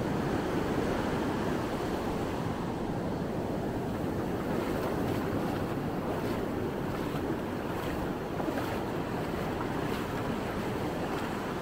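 Atlantic Ocean surf breaking and washing ashore in a steady rush, with wind buffeting the microphone.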